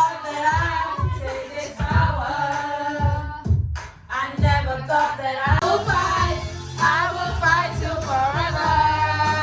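A woman singing a melody over a backing track with a steady beat, with a brief break about four seconds in; karaoke-style singing along to a track.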